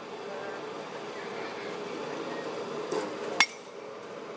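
A bat striking a pitched ball once, a sharp ringing crack about three and a half seconds in, just after a fainter knock.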